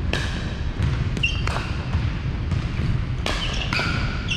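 Pickleball rally on a hardwood gym court: sharp, irregular pops of paddles striking the hollow plastic ball and the ball bouncing on the floor, about eight in four seconds, some with a brief ringing tone.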